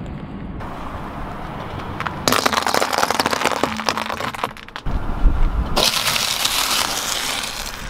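Car tyre crushing dry pasta shells and then a stack of wafer ice cream cones: two stretches of dense crunching and crackling, with a low tyre rumble between them.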